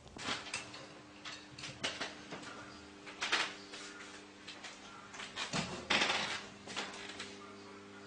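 An African grey parrot and a kitten scuffling: scattered taps and scratches of claws and beak, with two short louder rustling bursts about three and six seconds in. A steady low hum runs underneath.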